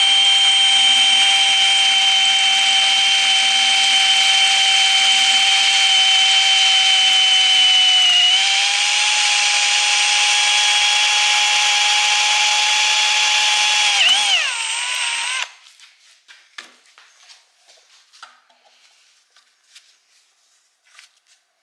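Electric drill running at a steady whine while drilling a bolt hole through the side of a metal pipe into an aluminum fitting; the pitch dips about eight seconds in, wavers near fourteen seconds and the drill stops about fifteen seconds in. Faint small clicks and handling sounds follow.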